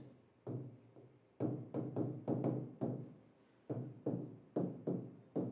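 A marker knocking and dragging against a writing board as a word and a row of arrows are written: a run of short, dull knocks, several a second and irregularly spaced.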